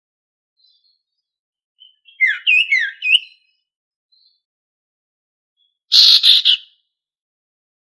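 A sirtu songbird singing in short bursts: a quick run of about five whistled, slurred notes about two seconds in, then a louder, harsher chattering phrase about six seconds in.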